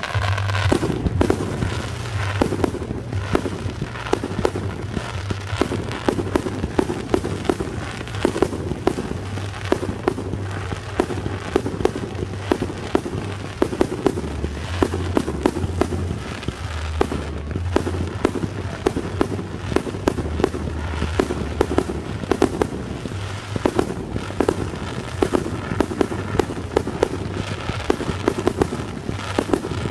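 Fireworks display firing without a pause: a rapid, dense run of shell bursts and crackling reports, several a second.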